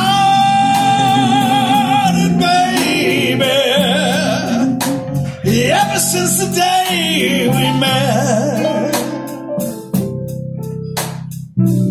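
Live blues band: a singer holding long, wavering notes over electric guitar, bass and drums.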